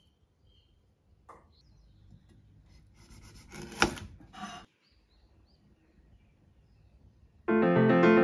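Kitchen knife cutting through the dry, papery skin of a garlic bulb on a plastic cutting board: a crackling rustle with one sharp knock of the blade on the board about four seconds in. Piano music starts near the end.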